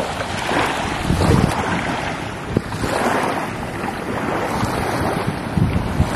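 Wind gusting across the microphone, rising and easing every second or two, over small waves washing onto a sandy beach.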